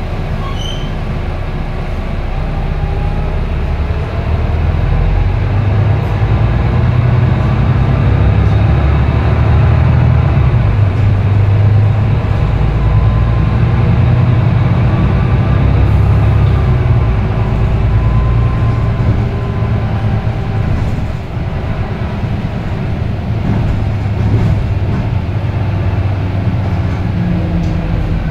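Volvo B9TL double-decker bus driving, heard from inside the lower deck: its six-cylinder diesel engine and Voith automatic gearbox running under load. The engine note grows louder about four seconds in and then holds steady, with a brief dip a little past twenty seconds and a faint whine gliding up and down above it.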